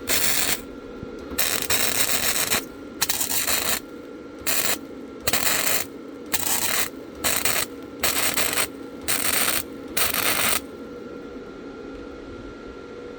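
Flux-core wire-feed welder arc crackling in about ten short bursts, each half a second to a second long, as a thin pipe is stitch-welded. The power is set so hot that the arc blows a hole through the pipe. The welder's cooling fan hums steadily underneath and on its own after the last burst.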